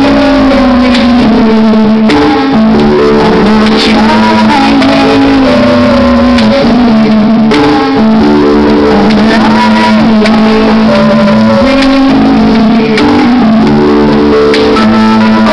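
Live music with a plucked guitar and a singing voice over a steady held low note, recorded very loud at near full level.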